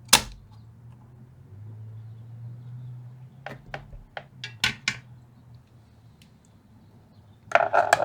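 Sharp clicks and small metallic taps and clatter of hand tools working on a metal amplifier chassis during desoldering, with a low hum underneath. One loud click right at the start, a quick run of clicks a little past halfway, and a short burst of clatter near the end.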